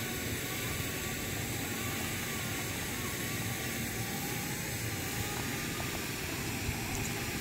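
Steady wind rumble on the microphone, an even outdoor noise with no single distinct event.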